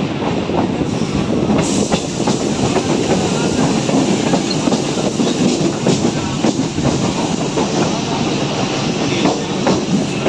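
Electric suburban EMU train running, heard from its open doorway: a steady rumble of wheels on rail with frequent clicks and knocks as the wheels cross rail joints.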